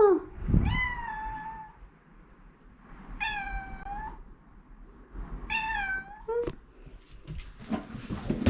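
A pet cat meowing its welcome-home greeting: three drawn-out meows a couple of seconds apart, each starting high and falling slightly. Light knocks and rustles follow near the end.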